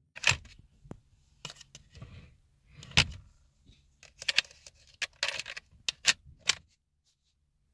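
Small metal hardware being handled: an irregular series of sharp clicks, clacks and knocks, a dozen or so over about six and a half seconds.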